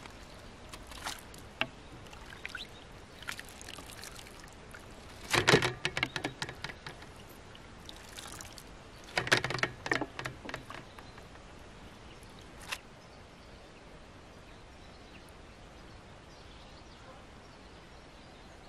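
Wet sorrel leaves being handled in a bowl of water and a metal colander: splashing and dripping in short bursts, the biggest about five and nine seconds in. After that there is only a quiet, steady outdoor background.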